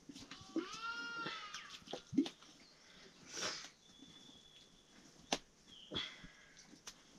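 A sheep bleats once, about a second in, followed by a few sharp knocks and clicks and a brief hiss.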